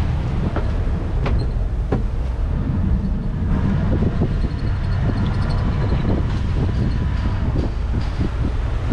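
Sea Ray Sundancer 370 motor cruiser under way: a steady low engine rumble mixed with water rushing along the hull.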